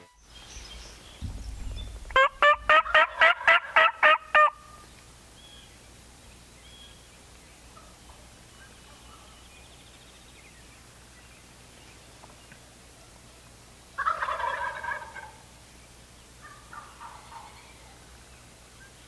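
Wild turkey calling: a loud run of about ten evenly spaced yelping notes over a couple of seconds, then a single shorter call about 14 s in, with a fainter one shortly after.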